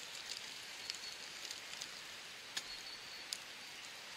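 Steady hiss of a river flowing, with a few faint short clicks as plants are handled and picked.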